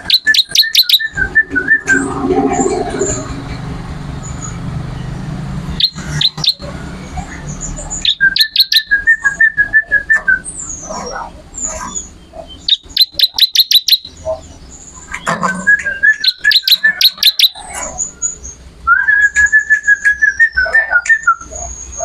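Caged ciblek (a prinia) singing: about six loud phrases of a second or two, each a very fast rattle of sharp ticking notes and quick trills, with short pauses and thin high whistles in between.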